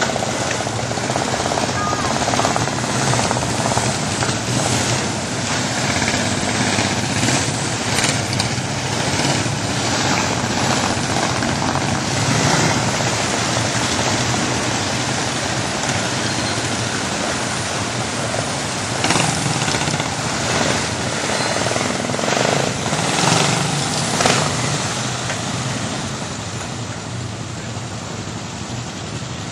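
A column of Suzuki DR-Big big single-cylinder enduro motorcycles riding past one after another, engines swelling as each group goes by. The noise falls off a little near the end.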